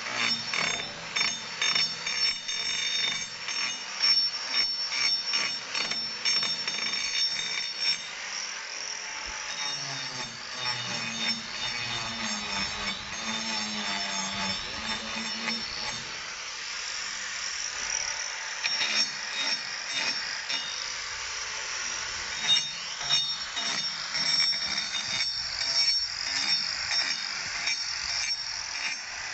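Corded angle grinder with a hoof-trimming disc running and grinding a cow's hoof: a steady high whine with rapid chatter as the disc bites the horn.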